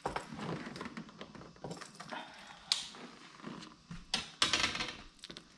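Clicks and rustles of a fishing rod and reel being handled as a lure is freed from the line.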